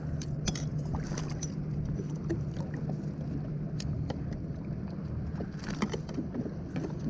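Small waves slapping and sloshing against a kayak hull in light chop, over a steady low hum. A few short clicks and knocks from fishing tackle being handled while a fish is unhooked.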